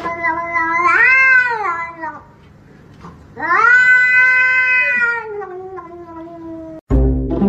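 Grey domestic cat yowling in two long, drawn-out cries; the first swells and rises in pitch about a second in, and the second starts about halfway through, holds, then sinks lower and tails off.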